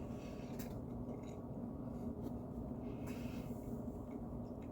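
Faint scratchy rustles and light handling noises over a steady low hum.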